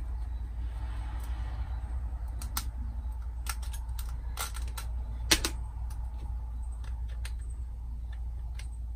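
Scattered small plastic clicks and taps as the cover is worked off a dual USB charging socket and the socket is fitted into its mounting bracket, with one louder click about five seconds in. A steady low hum runs underneath.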